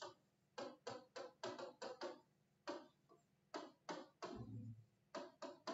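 Stylus tapping and scratching on a touchscreen board as words are handwritten: short, quick strokes, several a second, in bursts with a pause about halfway through.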